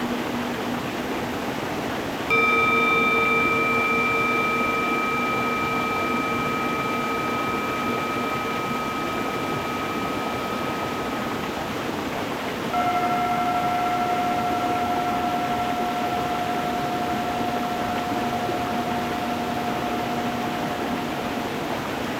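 Singing bowls struck twice, about ten seconds apart, each ringing on in a slowly fading tone, the second higher than the first, over the steady rush of a stream running over stones.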